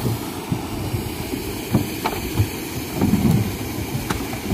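Wind buffeting the microphone, a low rumble, with faint voices of workers in the background.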